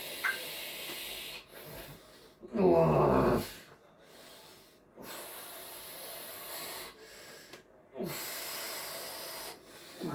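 A person breathing out hard in long hissing breaths, with one loud pained groan about two and a half seconds in.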